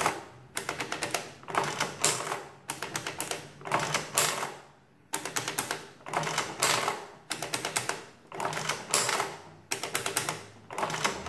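Sundstrand mechanical adding machine being worked by its hand crank, pull after pull. Each pull sets off a rattling burst of clicks from the mechanism and printer, about eight in all, roughly a second apart, with keys pressed in between.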